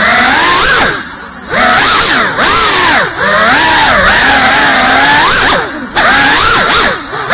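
GEPRC CineLog 35 cinewhoop FPV drone's motors and propellers whining in flight, heard from its onboard camera, the pitch rising and falling constantly with the throttle. The whine drops away for about half a second about a second in, and briefly twice more near the end.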